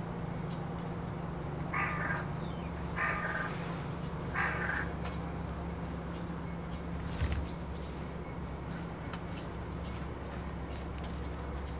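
A crow cawing three times, a little over a second apart, over a steady low hum.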